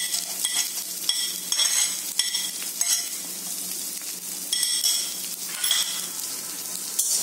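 Steel spatula scraping and clinking against a steel kadai while chopped onion, garlic and green chilies fry in hot oil, with a steady sizzle underneath. The ringing scrapes come in a run of strokes about every half second, pause, then come back a few times near the end.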